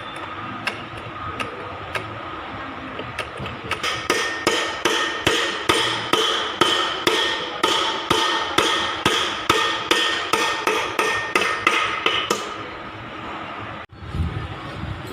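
Hammer striking metal: a few light taps, then a steady run of ringing blows about three a second that stops a couple of seconds before the end.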